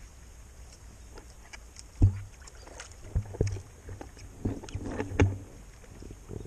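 Kayak paddling: water splashing and dripping off the paddle blades, with several sharp knocks of the paddle or handling against the kayak, the loudest about two seconds in.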